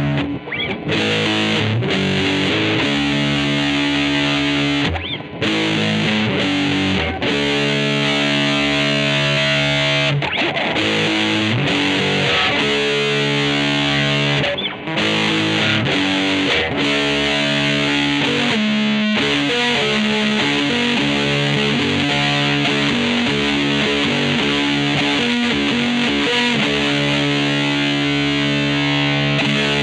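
Electric guitar, a 1994 Mexican-made Fender Stratocaster with GFS reverse-wound pickups, played with distortion and effects: held, ringing chords that change every second or two, with a few short breaks.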